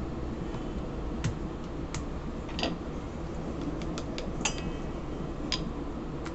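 Dough being rolled out with a wooden rolling pin on a floured worktop: a handful of light clicks and taps over a steady low hum.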